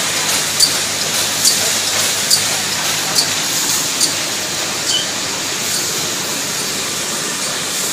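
Bar-soap production line machinery running with a steady hiss and low hum, and a sharp mechanical click repeating about once a second that stops about five seconds in.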